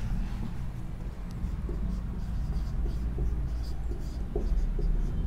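Marker pen writing on a whiteboard: a series of short pen strokes starting about a second and a half in, over a steady low hum.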